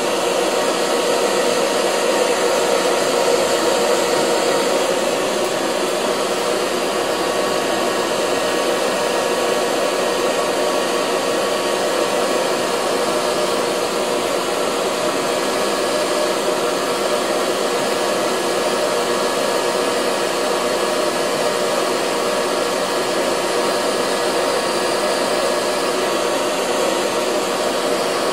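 ISO Professional handheld hair dryer running steadily, blowing on the hairline of a lace-front wig to set the gel until it is tacky.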